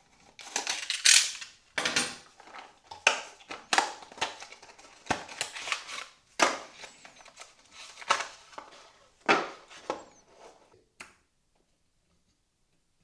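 Handling noises: an irregular run of crinkles, clicks and clatters that stops about eleven seconds in.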